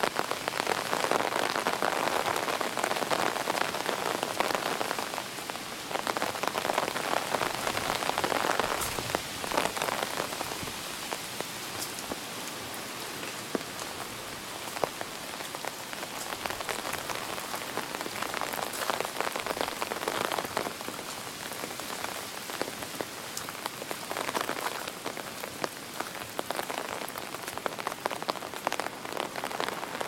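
Heavy typhoon rain hissing on grass, leaves and a puddled path, with scattered drop ticks, the downpour swelling and easing every few seconds as the wind gusts.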